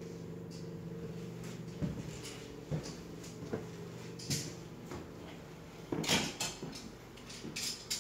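Steady low hum, with soft thuds of footsteps about every second as someone walks through the rooms. The hum fades out partway through, and busier knocking and scraping follow near the end.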